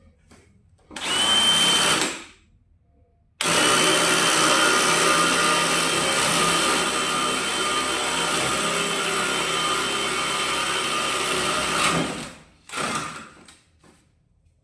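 DeWalt brushless cordless hammer drill running: a short burst of about a second, then a steady run of about eight seconds that stops suddenly, then another brief burst near the end.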